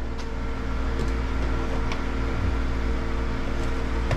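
A steady low mechanical hum made of several held tones, swelling up at the start, with a few faint clicks.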